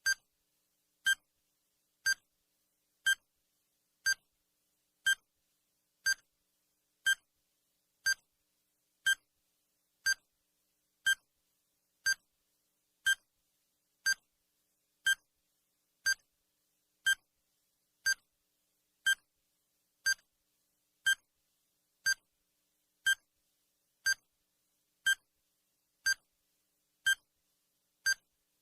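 Countdown timer's sound effect: a short, high electronic beep once every second, evenly spaced, marking off the seconds.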